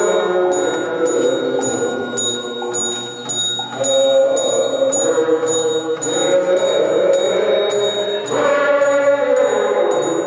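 Background music: sustained chords that change every second or two over a steady high ticking beat, about two ticks a second.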